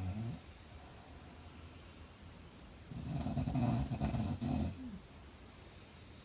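A sleeping woman snoring: the tail of one snore just at the start, then a long, loud snore about three seconds in that lasts some two seconds.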